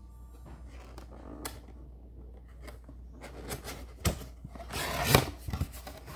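A box and its plastic packing being handled and opened: scattered clicks, knocks and crinkling, busier and louder near the end.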